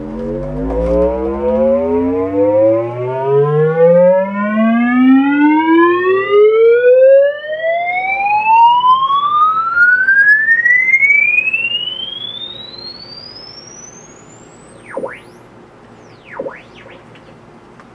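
Test-tape tone sweep played through a boombox and a 10-inch subwoofer, rising steadily in pitch from deep bass to a high whistle over about fifteen seconds, with strong overtones and fading as it climbs. Near the end, two short swooping chirps dip down and back up.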